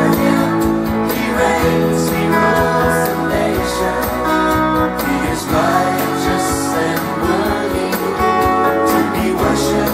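Electric guitar played along with a recorded worship-song backing track during an instrumental passage: sustained notes over a band accompaniment with drum hits.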